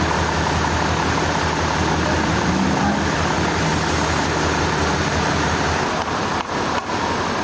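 Sawmill machinery running steadily: a low engine hum under a dense wash of mechanical noise. About six seconds in the noise thins and drops out twice briefly.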